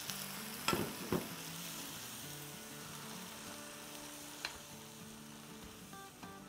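Masoor lentil and potato masala sizzling in a nonstick wok while a silicone slotted spoon stirs it. There are a few sharp clicks of the spoon against the pan, two about a second in and one after four seconds.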